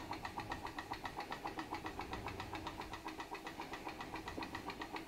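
PM Research glass Stirling engine running under load, belted to a Baker fan: a fast, even ticking clatter from its piston and linkage. It is the sound of the engine working against the fan's air load.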